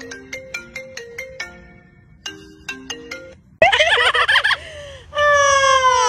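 Smartphone ringtone playing a tune of short, bright struck notes; it stops and starts again about two seconds in. After about three and a half seconds it gives way to a much louder harsh parrot call, then a long call that falls in pitch.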